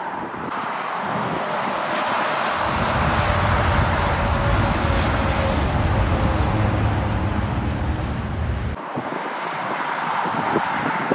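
Highway traffic passing, with tractor-trailers and cars giving a steady rush of tyre and engine noise. Strong wind rumbles on the microphone from about two and a half seconds in and stops abruptly near nine seconds.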